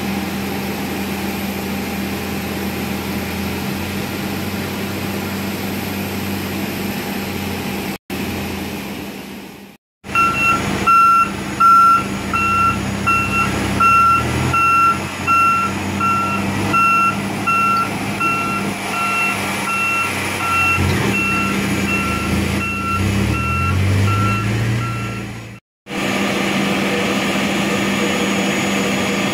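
Steady jet engine noise from an airliner's ground engine run-up, broken by a cut; then an aircraft tow tractor's reversing alarm beeping at an even pace over its engine, which rises and falls in pitch. The steady jet engine noise returns after another cut near the end.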